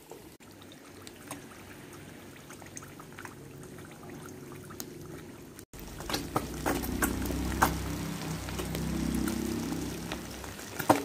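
Eggs frying in oil in a nonstick pan over low heat: a soft sizzle with scattered pops and crackles. It breaks off for a moment about halfway through and then comes back louder, with more crackling.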